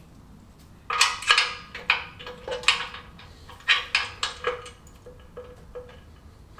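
Irregular metallic clinks and taps of a small bolt and hand tool against the Fiat 500 engine's metalwork, with a faint ringing note. They start about a second in and come from working at a bolt that will not start in its thread.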